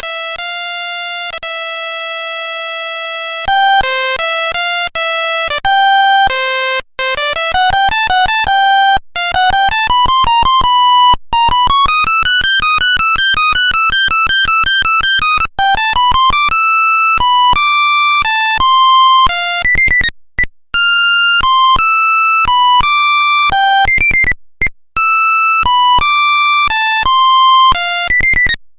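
Nokia 1100 monophonic ringtone: a single buzzy electronic voice plays a melody one note at a time. It opens on a few held notes, moves into fast climbing runs of short clicky notes in the middle, and breaks off briefly a couple of times in the last third.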